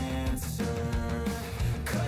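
Background music: a guitar-led rock song.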